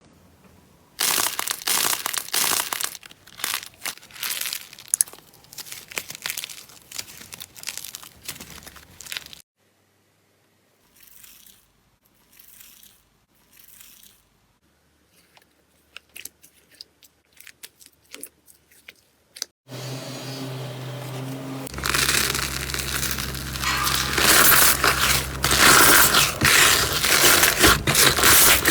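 Slime being squeezed and pressed by hand, making dense crunching and crackling. A quieter stretch of sparse soft pops and clicks falls in the middle, before louder crackling over a low hum.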